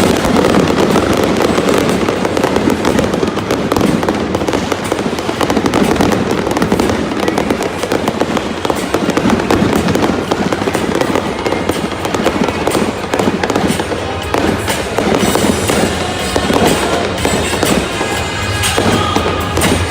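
A fireworks barrage, shells bursting and crackling in rapid, continuous succession, with music playing over a stadium sound system.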